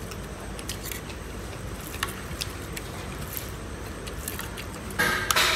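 Sounds of eating rice and fish by hand: scattered small clicks and smacks of chewing and of fingers working food on a plate, over a steady low background noise. A brief louder rustling noise comes about five seconds in.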